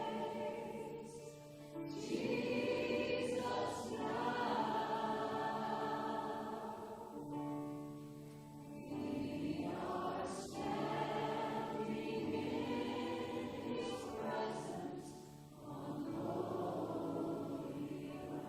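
Church congregation and worship team singing a slow worship song with musical accompaniment, in long held phrases.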